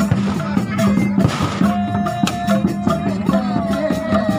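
Sundanese folk procession music: hand drums beating quickly with bamboo angklung rattling, over a steady low tone, with a held, wavering melody line in the middle.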